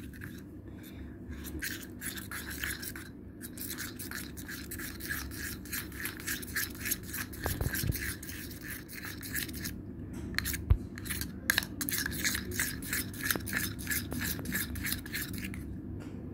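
Metal spoon stirring a thick, sticky glue-and-paint slime mixture in a stainless steel tumbler: rapid repeated scraping strokes against the cup, pausing briefly about three seconds in and again near ten seconds. A steady low hum runs underneath.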